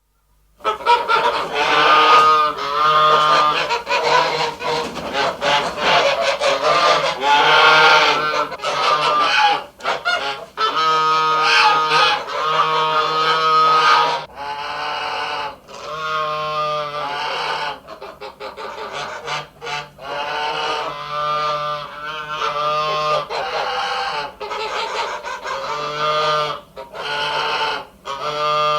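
Ducks quacking, loud calls following one another in quick succession and often overlapping.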